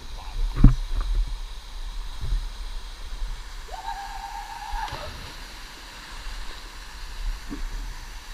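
Water splashing and sloshing in an irregular run, with a single held note lasting about a second about halfway through.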